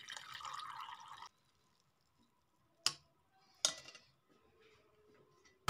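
Thickened orange cream pouring through a plastic mesh sieve into a metal bowl, trickling and splashing, then cutting off abruptly after about a second. Two faint clicks follow in the quiet.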